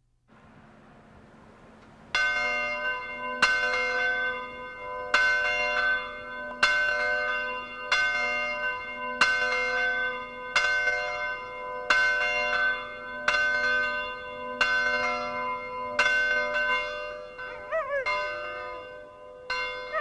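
A single church bell tolling slowly, about one stroke every second and a half, each stroke ringing on into the next: a funeral toll. It starts about two seconds in. Near the end a dog howls twice, its voice wavering up and down over the bell.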